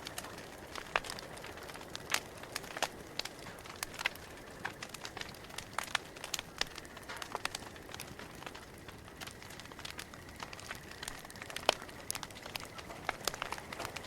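Campfire crackling: irregular sharp pops and snaps of burning wood over a soft steady hiss, with one louder pop late on.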